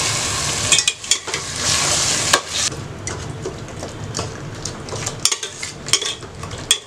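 A metal ladle stirring a sizzling masala gravy with curd in a metal pot, scraping and clinking against the pot. The sizzle is loudest for the first two seconds or so, then eases off while the ladle's sharp clinks carry on.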